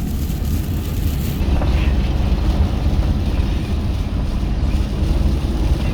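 A car being driven: steady low rumble of road and engine noise.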